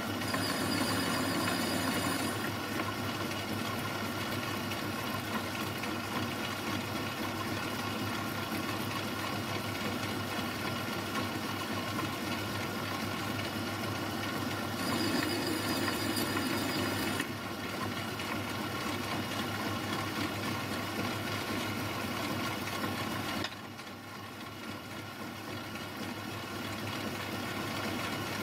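Metal lathe running steadily while turning a steel buffer housing. Its sound grows louder, with a high whine, for a couple of seconds near the start and again about halfway, and drops quieter for a few seconds near the end.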